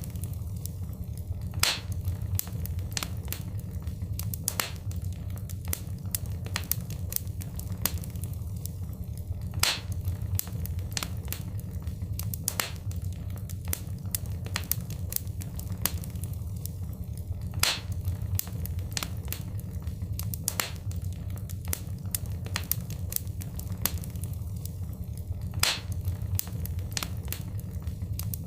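Wood fire in a fireplace crackling, with a steady low rumble under a stream of small snaps and pops. A louder pop comes about every eight seconds, the same pattern repeating.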